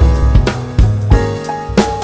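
Background music with a steady drum beat, bass and keyboard.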